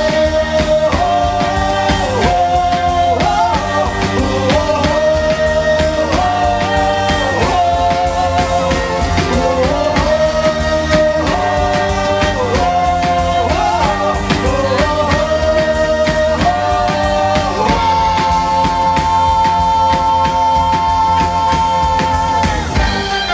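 Live band playing a song: a sung melody over a steady drumbeat, with the melody settling into one long held note near the end.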